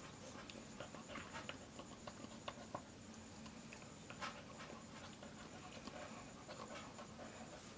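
A dog nosing and mouthing at a small toy on a tile floor: faint, scattered clicks and scuffs.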